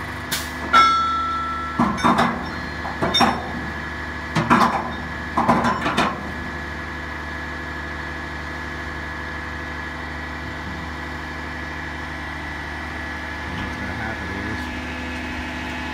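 Diesel engine of a cable-hoist roll-off truck idling steadily. During the first six seconds there is a series of sharp knocks and clanks, one followed by a brief ringing.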